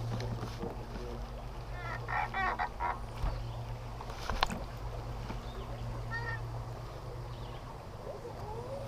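Bird honking calls: a quick run of about four short calls about two seconds in, and a fainter one about six seconds in. A single sharp click comes about halfway through, over a steady low hum.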